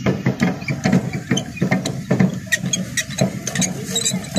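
Hand-cranked spiral potato cutter at work: its threaded screw rod turns and feeds a raw potato against a steel blade, giving a quick, irregular run of metallic clicks and scrapes as the blade slices the potato into a spiral.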